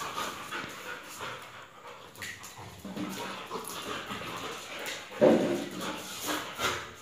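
A Labrador and a smaller tan dog play-wrestling, making dog vocal sounds amid irregular scuffling noises, loudest in a burst about five seconds in.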